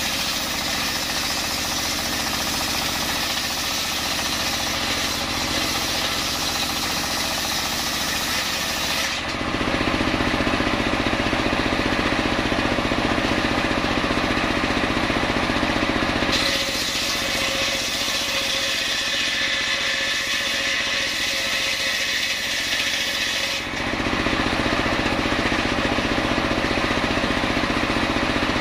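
Engine-driven homemade circular saw bench ripping a coconut-wood log. It alternates between stretches of cutting with a bright, hissing rasp and louder stretches where the blade spins free with a lower drone, about 9 s in and again near the end.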